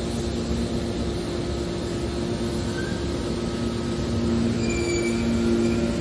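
Hydraulic scrap metal baler running, its power unit giving a steady mechanical hum with two low drone tones. It grows louder about four seconds in, and a few short high-pitched squeals follow as the press works.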